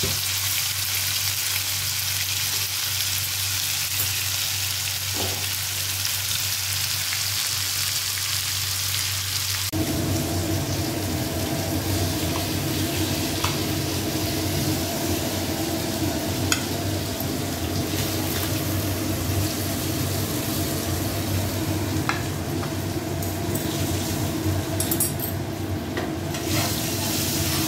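Marinated chicken pieces sizzling steadily as they shallow-fry in hot ghee, with a few faint clicks from a utensil. The frying sound changes in character about ten seconds in.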